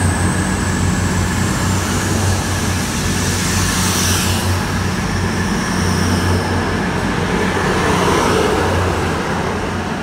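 Class 222 Meridian diesel-electric train running at the platform: a steady low engine hum, with faint high whines, one sliding down in pitch at the start.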